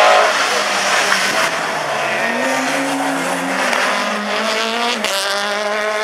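Peugeot 308 rallycross car's engine running hard through a corner, its note rising and falling as the driver works the throttle, with a sudden jump up in pitch about five seconds in.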